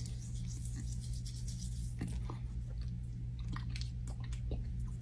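Lip scrub being rubbed on the lips and tasted: faint gritty scratching and small clicks of lips and mouth over a steady low hum.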